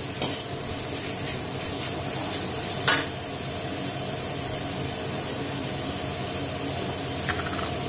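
Chopped vegetables sizzling steadily in hot oil in a metal kadhai, with a single sharp knock of the steel slotted spoon against the pan about three seconds in.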